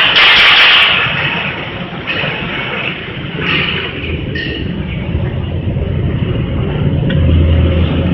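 Caramel popcorn production line machinery running: a steady mechanical rumble, with short bursts of rushing noise early and about halfway through, and a low hum that grows louder near the end.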